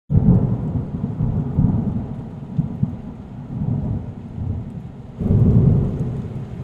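A low, irregular rumbling noise, growing louder about five seconds in.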